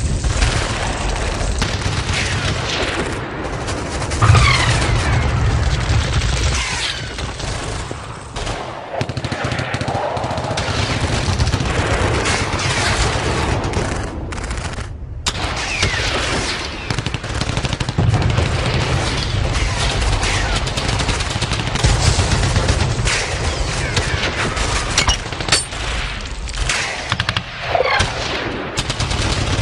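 Battle sound effect: sustained machine-gun and rifle fire in dense volleys over a heavy low rumble, with several falling whistles cutting through the shooting.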